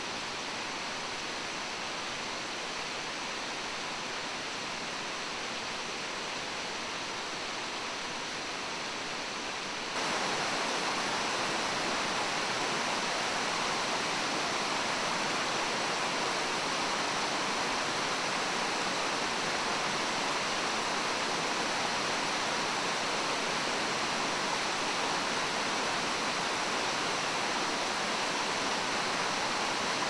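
Waterfall's water pouring down its rock tiers, a steady rushing noise. About ten seconds in it jumps suddenly louder and brighter, then holds steady.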